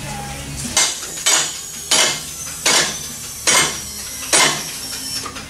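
Car alignment lift rising, its safety latches clanking in turn against the lock ladders: a series of sharp metallic clanks a little under a second apart, over a steady low hum.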